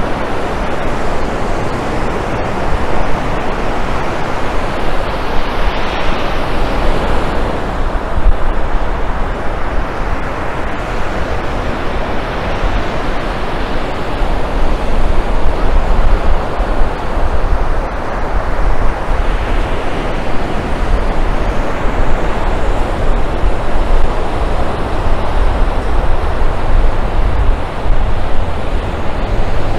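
Ocean surf washing onto a sandy beach, swelling a few times, with wind buffeting the microphone as a steady low rumble.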